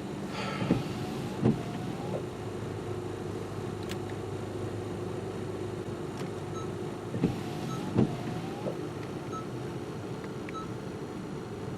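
2015 Honda Civic LX running at idle, a steady low hum heard from inside the cabin, with two pairs of sharp clicks: one near the start and another about seven seconds in.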